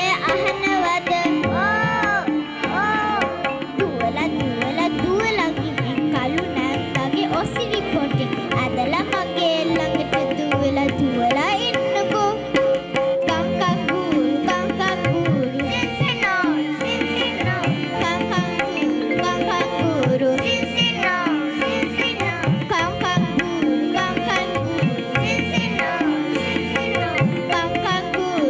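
Children singing a Sinhala song together over an instrumental accompaniment with a steady drum beat and plucked strings.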